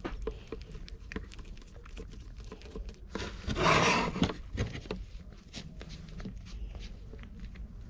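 A cat eating wet food off a paper sheet: a run of small, quick chewing and licking clicks, broken about three seconds in by a louder rush of noise lasting about a second.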